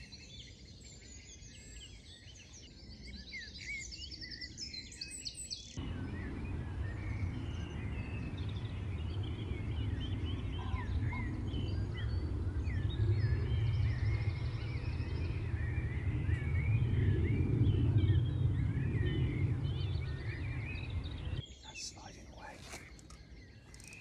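Dawn chorus: many songbirds singing at once, with quick overlapping chirps and phrases. From about six seconds in, a low rumble runs beneath the birds, swelling in the middle and stopping abruptly a few seconds before the end.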